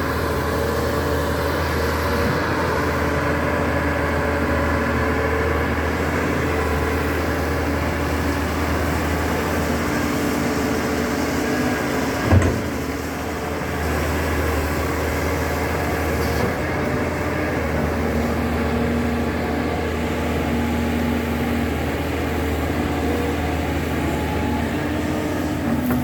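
Backhoe engine running steadily as the machine works, with one sharp knock about halfway through.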